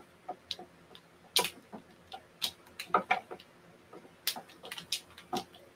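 Kumihimo bobbins (tama) knocking together as they are moved around a marudai braiding stand: a string of irregular sharp clicks and clacks.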